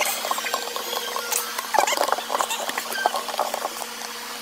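Scratchy rustling and irregular small clicks as hands and the camera handle a cardboard box tied with yarn, over a faint steady hum. The scratching grows sparser near the end.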